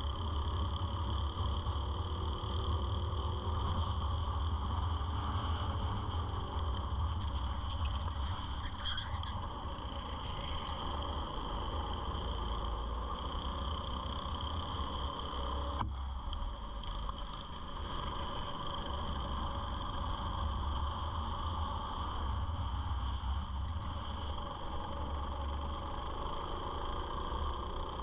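Go-kart engine heard from on board while racing, running continuously and rising and falling in pitch with the throttle through the corners.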